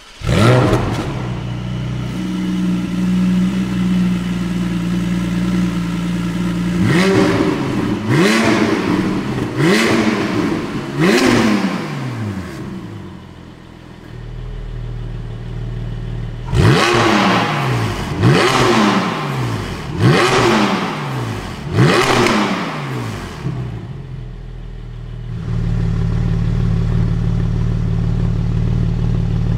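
Porsche 718 Spyder's 4.0-litre naturally aspirated flat-six, breathing through a Tubi Style catback exhaust, firing up and settling into a fast idle. It is then blipped in two sets of four sharp revs, each climbing and dropping back, with idle between them. The idle comes through louder in the last few seconds.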